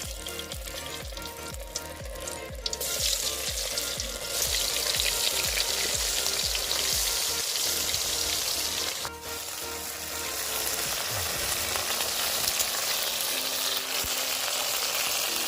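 Marinated mushroom pieces deep-frying in hot oil: a dense, crackling sizzle. A music beat plays over the first two or three seconds, and the sizzle breaks off briefly about nine seconds in.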